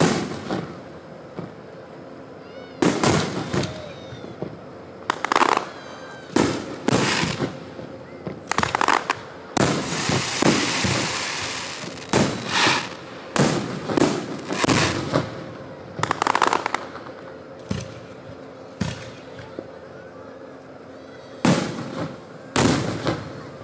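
Aerial firework shells bursting overhead in a string of loud, irregular booms, each with a short echoing tail. About ten seconds in comes a dense, unbroken run of bursts lasting a couple of seconds.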